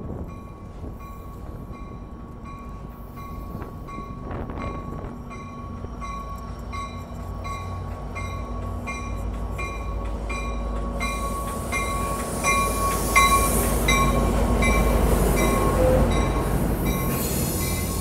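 Amtrak F59PHI diesel locomotive arriving, its bell ringing steadily about twice a second over the rising rumble of the engine and wheels. The rumble is loudest as the locomotive passes, about two-thirds of the way in, and the passenger cars follow.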